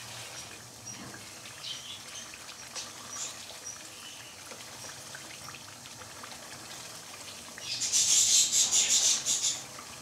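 Thick fish curry bubbling and spitting in a wok, with its oil risen to the surface, and scattered small pops and clicks as it is stirred. About eight seconds in comes a louder burst of rapid crackling sputter lasting about two seconds.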